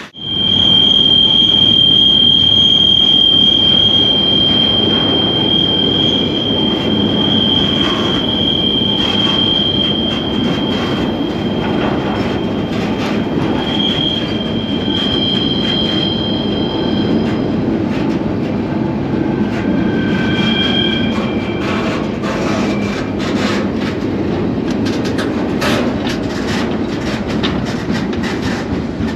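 Freight train rolling, heard from aboard, with a steady loud rumble of wheels on rail. A single high wheel squeal holds through the first half, and a shorter squeal in several tones follows a few seconds later. Scattered clanks and rattles run through it, thickening near the end.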